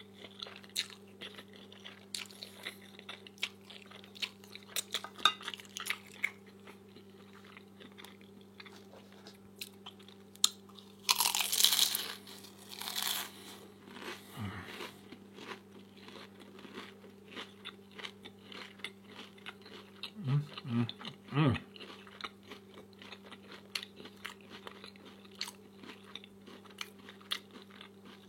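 Close-up eating sounds: crisp fried egg rolls being bitten, crunched and chewed, with many small crackles and a louder crunching stretch about eleven seconds in. A steady low hum runs underneath.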